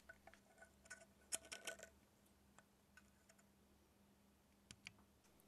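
Faint metallic clicks as a copper pipe with its compressed copper olive is pulled out of the compression end of a chrome isolation valve, metal touching metal. Most of the clicks fall in the first two seconds, with two more near the end.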